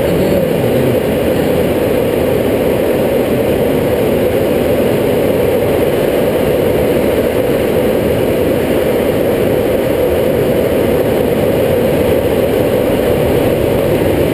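Motor glider's propeller engine running steadily, heard loud from inside the cockpit.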